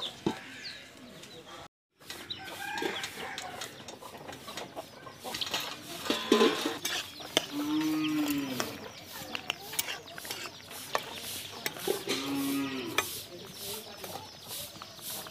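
A cow mooing twice, each a low call of about a second, once around the middle and again a few seconds later. Hens cluck in the background, and a metal ladle clicks against a steel karahi as the curry is stirred.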